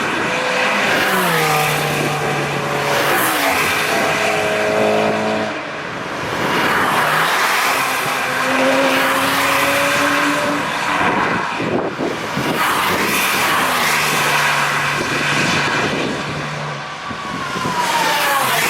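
Several cars passing one after another at speed, their engine notes overlapping. Some notes rise under acceleration, and several drop in pitch as each car goes by.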